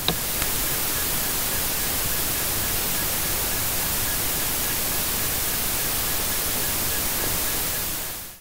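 Steady, loud static-like hiss that starts abruptly and cuts off suddenly, with a faint, rapidly pulsing thin tone beneath it.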